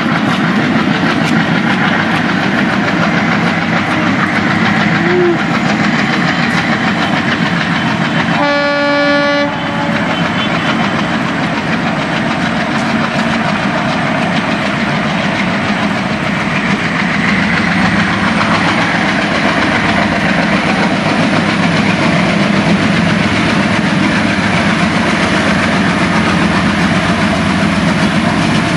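Pair of ALCo-design diesel locomotives running with a train, their engine and rail noise loud and steady, with a clickety-clack of wheels. About a third of the way in, one locomotive horn blast sounds for about a second.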